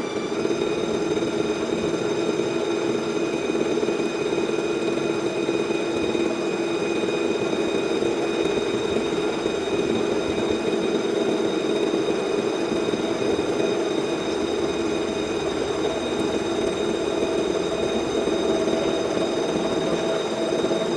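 CNC vertical milling machine surface-milling a metal part: a steady spindle whine over the dense, even noise of the cutter working the metal, with the pitch stepping up slightly at the very start.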